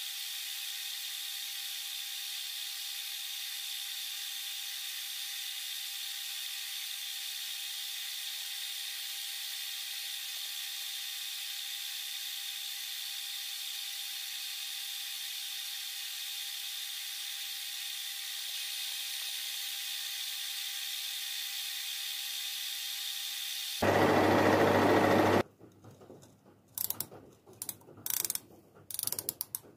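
Metal lathe running steadily while the cutting tool turns down the worn steel shaft of a gear, a steady hiss with a faint whine. Near the end a brief loud burst, then several sharp clicks of a micrometer's ratchet thimble as the shaft is measured.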